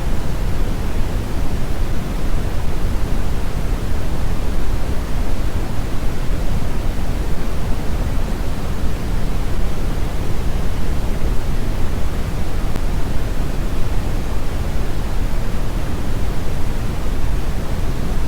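Synthetic brown noise: a steady, unbroken rumbling hiss, heaviest in the bass, with no changes.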